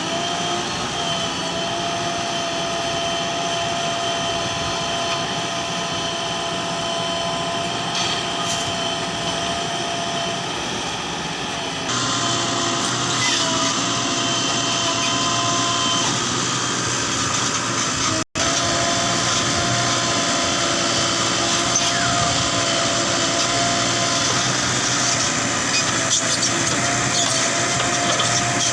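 Heavy diesel machinery running steadily with a held high whine over the engine. The sound changes abruptly about twelve seconds in and cuts out for an instant about eighteen seconds in.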